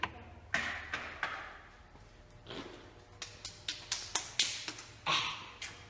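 A scatter of sharp taps and clicks in a small room, with a quick run of about eight of them a little past the middle, and short bursts of scuffing or rustling in between.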